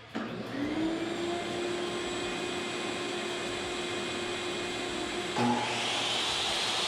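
DeWalt DWE7491 10-inch table saw switched on for a test run: the motor spins up over about a second to a steady running whine. About five seconds in, a louder rushing hiss joins it.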